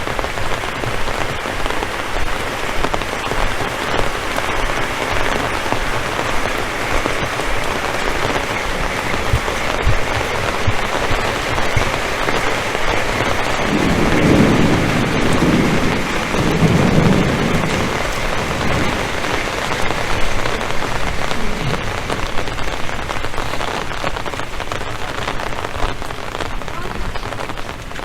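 Heavy rain falling in a steady dense hiss, with a low rumble that swells twice about halfway through.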